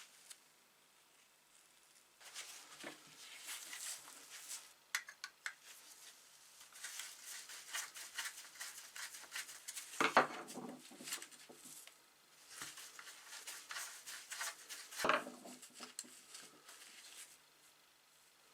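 Metal parts of an antique brass coffee grinder being handled and worked on: spells of scraping and rattling with light clicks, and two louder clunks about ten and fifteen seconds in.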